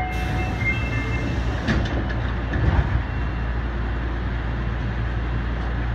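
Osaka subway 25 series electric train running, heard from inside the car: a steady rumble and hum, with brief high tones in the first second. Wheels clatter and knock over the track between about one and a half and three seconds in.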